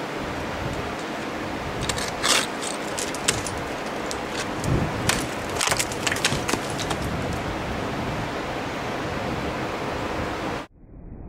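Ice axes being swung into waterfall ice: sharp cracks and chips of the picks biting in, about two seconds in and again from about four and a half to seven seconds, over a steady rushing noise. The sound cuts off suddenly near the end.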